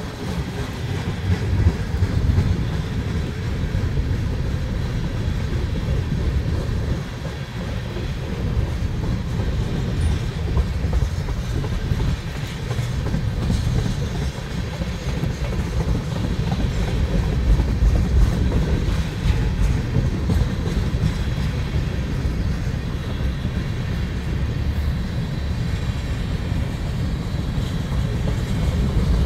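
Freight train of railroad tank cars rolling past, a steady low rumble of steel wheels on the rails.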